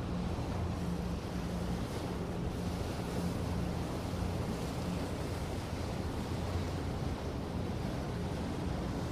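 A steady rushing noise, like wind or surf, with a faint low hum beneath it.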